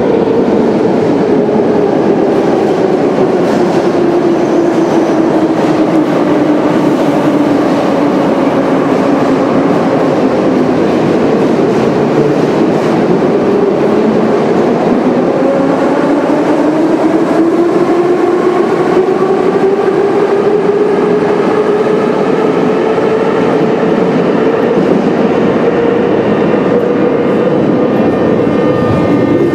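Moscow Metro 81-717/714 train's traction motors whining on a station platform over steady wheel and rail rumble. The whine falls slowly in pitch as a train brakes into the station, then rises slowly again from about halfway through as a train accelerates away.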